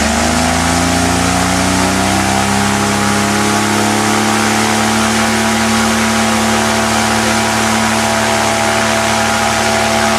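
A converted 1300 Suzuki car engine turning a 171 cm propeller through a 3:1 reduction runs up over the first two seconds, then holds steady at full throttle, about 4800 rpm, with a steady propeller whirr. The propeller is pulling roughly 120 kg of static thrust against the test scale.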